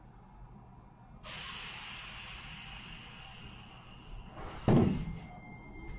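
Nankai 2300 series electric train's air brakes releasing after the doors close: a sudden hiss about a second in with a faint whistle falling in pitch under it, then a single loud clunk near the end as the train gets under way.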